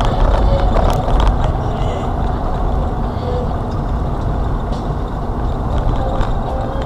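Steady road and engine noise of a moving car, with a few sharp knocks and rattles in about the first second.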